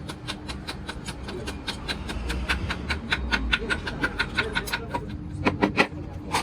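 Rapid metallic tapping or clicking, about five strikes a second, with a faint ring. Three heavier strikes come near the end, over a low steady hum.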